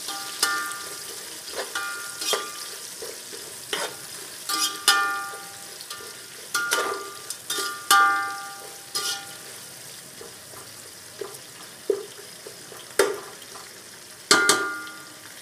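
Sliced onions and whole spices frying in oil in a metal pot, with a steady sizzle, while a metal spoon stirs them, knocking and scraping against the pot so that it rings briefly at each strike. The knocks come irregularly, every second or two, thinning out for a few seconds past the middle. The onion is being sautéed until soft.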